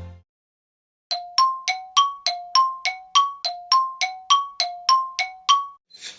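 An electronic two-tone chime ringing repeatedly: about sixteen bell-like notes, roughly three a second, alternating low and high. It starts about a second in and stops shortly before the end.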